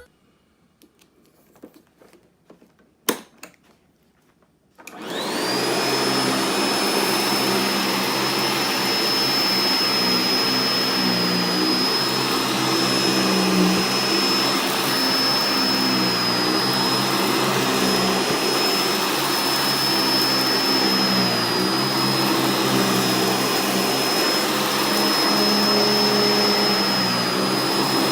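A few faint clicks and one sharp click, then a Sanitaire upright vacuum cleaner switches on about five seconds in. Its motor spins up to a steady high whine and runs on, with the lower hum shifting as the vacuum is pushed back and forth over a rug.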